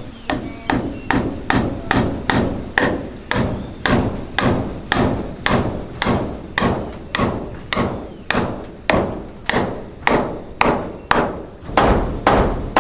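Hammer nailing into wood with a steady run of sharp blows, about two to three a second, each with a short ringing tail.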